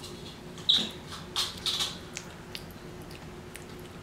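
Close-up wet mouth and eating sounds of oatmeal being taken off a spoon: a short sharp high sound just under a second in, a couple of noisy smacks around a second and a half, then a few faint clicks, over a steady low hum.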